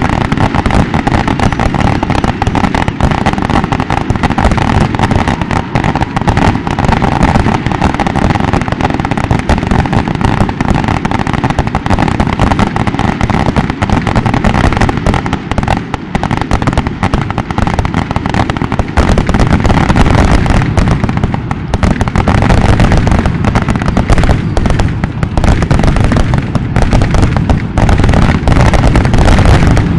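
Loud, continuous barrage of aerial firework shells bursting and crackling in rapid succession: the finale of a fireworks display.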